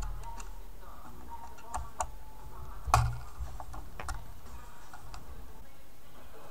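Hex key and fingers working on a Floyd Rose locking tremolo bridge, making a handful of small, scattered metallic clicks and taps. The loudest is about three seconds in.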